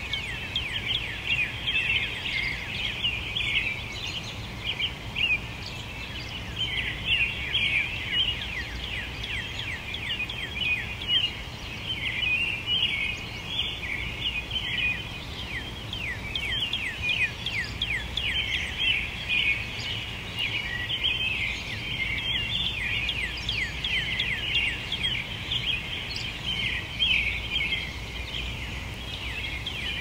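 Dawn chorus of many songbirds singing at once: a dense, unbroken overlap of quick falling notes, over a low steady rumble.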